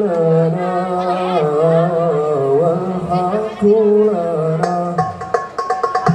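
Live sholawat music played through the event's PA sound system: a long, ornamented sung melody over held low accompaniment notes, with hand percussion starting up in a regular rhythm near the end.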